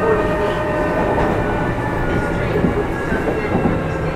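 Kintetsu 2610 series electric train car Mo 2614 running, heard from on board: a continuous rumble of wheels on rails with a steady drive hum whose pitch sinks slightly.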